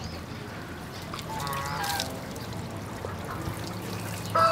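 Water sprinkling from a watering can's rose onto potted plants, a soft steady hiss. About a second and a half in, a short call from farmyard poultry. Near the end, a rooster starts a loud crow.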